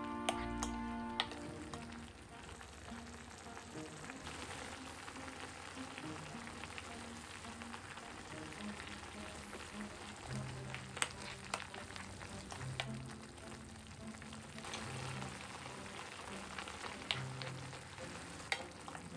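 Mushroom and beef sauce simmering in a frying pan, a steady bubbling sizzle. It is stirred with a wooden spoon, with a few sharp clicks of the spoon against the pan.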